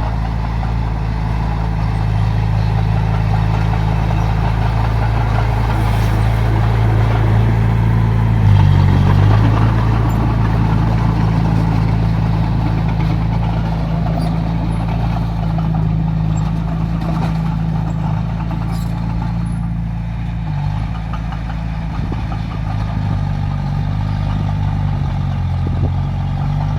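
Heavy diesel engine of earthmoving machinery running steadily at a low note, shifting in pitch briefly about nine seconds in and again about twenty-one seconds in.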